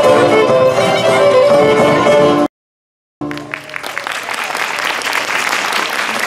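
Live Greek folk ensemble with a violin lead playing a dance tune. The music cuts off abruptly about two and a half seconds in, and after a short dead gap audience applause builds and carries on.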